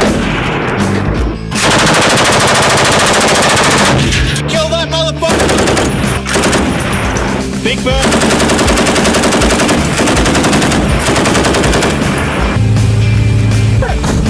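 Machine gun firing in long rapid bursts, with a short pause partway through, over background music.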